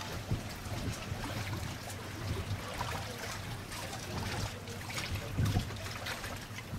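Open-water ambience: water lapping and trickling under a steady hiss, with a low rumble that swells briefly twice.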